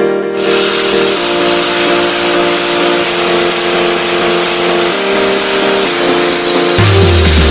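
Background music: an electronic track in which a loud, steady hiss rises in over held chords, and a deep falling bass comes in near the end.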